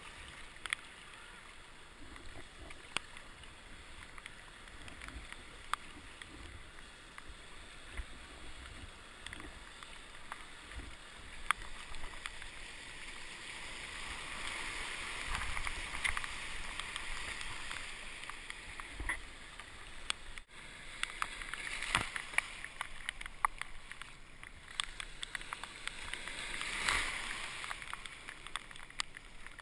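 Water rushing and splashing along a sea kayak's hull as it surfs a freighter's wake wave, with scattered sharp splashes and knocks. The rush swells about halfway through and again near the end.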